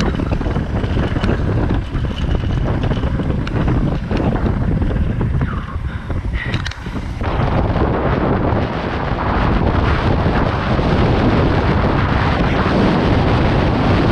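Wind buffeting the camera microphone, mixed with mountain bike tyres rolling fast over a dirt trail and scattered small clicks and knocks from the bike. The rushing gets louder about halfway through.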